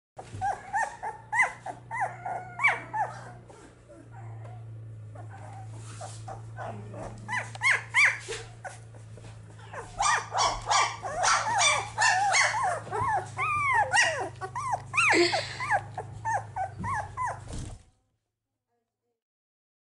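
Newborn White Swiss Shepherd puppies whimpering and squeaking: many short, high cries that rise and fall, several a second, over a steady low hum. The cries cut off sharply near the end.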